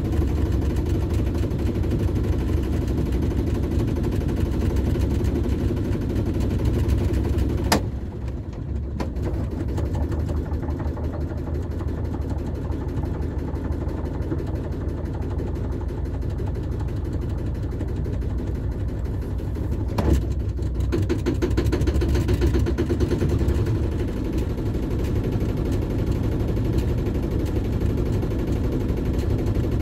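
Shipman 28 sailboat's inboard engine running steadily at low revs while the boat motors out. A sharp knock comes about 8 seconds in, after which the engine runs a little quieter, and another about 20 seconds in, after which it runs louder again.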